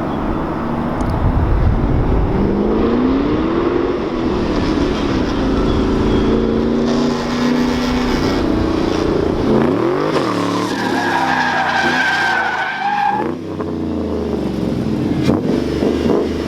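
Ford Mustang's 4.6 V8 revving up and down hard while the car slides, its engine note rising and falling. The tires squeal, most strongly about two-thirds of the way through.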